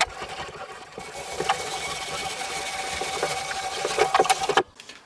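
Hand-cranked stainless-steel spiral potato cutter turning a raw potato on a skewer through its blade: a steady scraping and whirring as the potato is cut into a spiral. It stops abruptly near the end.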